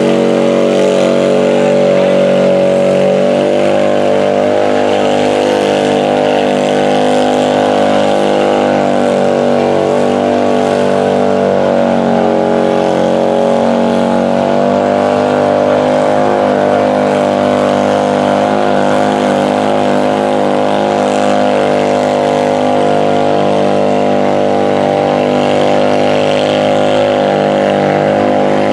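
Engine of a lifted Polaris UTV on big mud tires running hard at a steady, held pitch for the whole stretch as the tires churn through deep mud.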